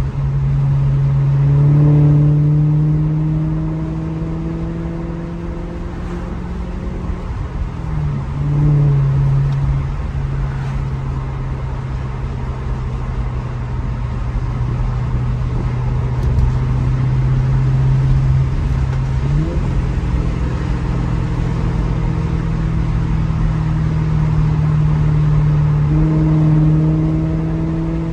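Maserati GranTurismo's V8 engine and exhaust pulling steadily while being driven, its pitch creeping slowly and jumping at gear changes about 8 seconds in, about 19 seconds in and again near the end.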